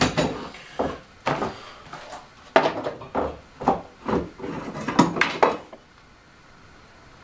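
Sharp metallic knocks and clanks of a steel bar clamp being loosened and a knife blade being lifted off a wooden workbench, about a dozen hits in quick, uneven succession that stop near the end.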